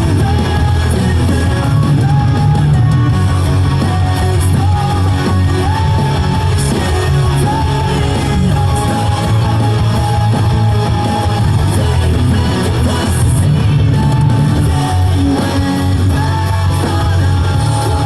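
Rock song with singing and guitar playing steadily throughout.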